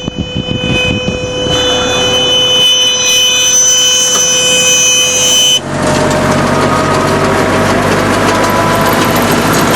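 Straw baler machinery running: a steady whine with several high held tones, then, a little over halfway, an abrupt change to a louder, dense clattering running noise.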